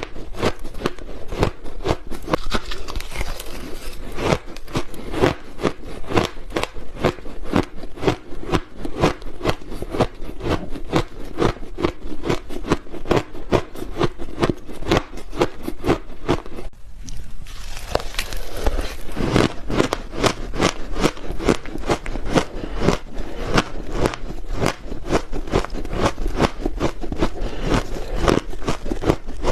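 Close-miked crunching and chewing of frozen ice in big bites: a dense run of rapid, crisp crunches, with a short pause about seventeen seconds in.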